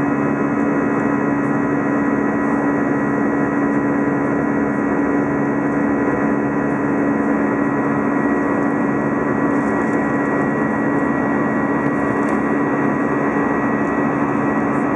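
Cabin noise of an Air France Airbus A320 climbing after take-off: the turbofan engines run with a steady drone, a constant low hum and a thin high tone.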